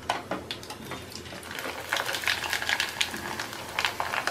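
Sun-dried cooked rice crackling and sizzling as it deep-fries in hot oil and puffs up, the crackle growing denser and louder about a second and a half in.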